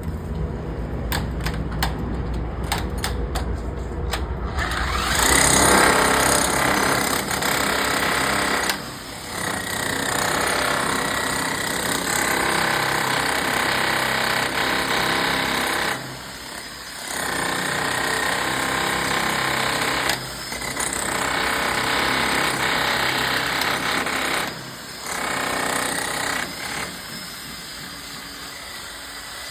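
Hammer drill boring into a concrete slab. It starts about five seconds in and runs in long stretches, with short pauses between them, and eases off near the end.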